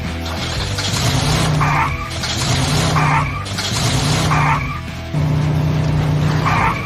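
Car sound effects: an engine running with tyres skidding in repeated bursts about every second and a half, over background music.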